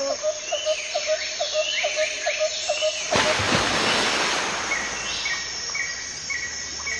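Countryside ambience of birds and insects: a short low call repeated about four times a second for the first three seconds over a steady high insect buzz. About three seconds in, a burst of noise cuts in and fades. After that, a bird's short chirp repeats about twice a second.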